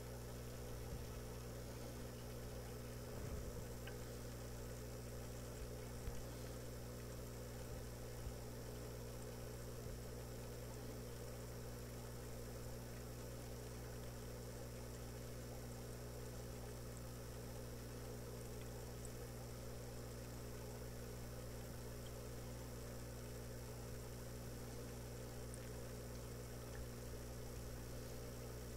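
Steady low hum with a faint high-pitched whine over it, and a few faint ticks about three, six and eight seconds in.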